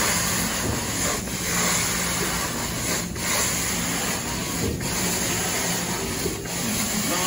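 Carpet-cleaning extraction wand spraying hot solution and sucking it back up out of the carpet: a steady rush of vacuum air and water over a low machine hum, dipping briefly about every one and a half seconds.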